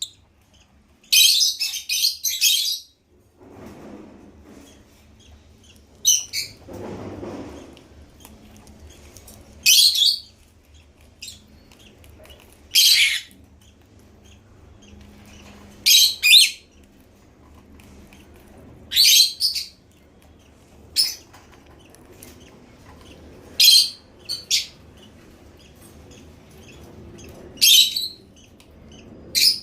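African lovebirds giving short, shrill bursts of chirping calls every few seconds.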